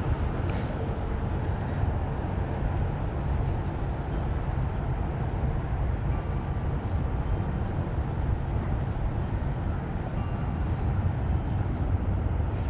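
Wind buffeting the microphone: a steady, unbroken low rumble.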